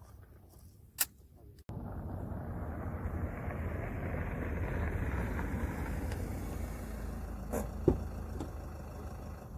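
A single sharp pistol shot about a second in. It is followed by a steady rushing noise that starts abruptly, swells and eases off, with two more short sharp cracks near the end.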